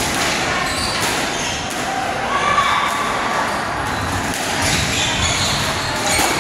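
Squash rally: a series of sharp knocks as the ball is struck by the rackets and hits the walls, spaced irregularly about a second apart.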